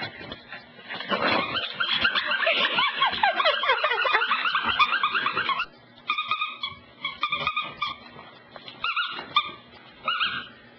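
Beagle puppy whining and yipping from under a couch. Rapid high yips crowd together for the first half. After that come separate, drawn-out high whines with short pauses between them.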